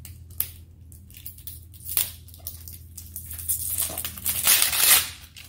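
Crinkly plastic wrap of an L.O.L. Surprise ball crackling as it is peeled off by hand, with scattered clicks becoming denser and louder near the end.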